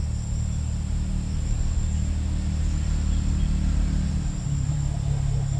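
Insects chirring steadily at a high pitch over a loud, low steady hum, which takes on a new low pitch about four and a half seconds in.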